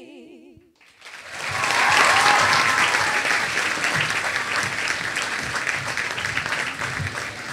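A choir of girls' voices holds its last sung note with vibrato, which fades out within the first second. Then an audience breaks into applause about a second in, loudest soon after and going on steadily.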